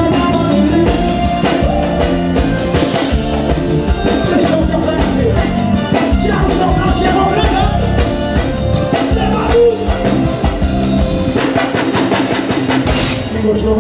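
Live forró band playing, with accordion over drum kit, percussion and keyboards.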